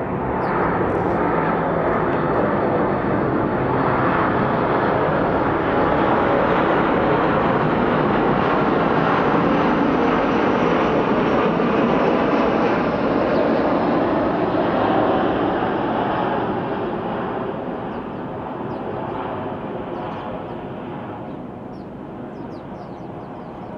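Loud engine noise of something passing, swelling over the first several seconds and slowly fading in the last third. Faint bird chirps come through near the end.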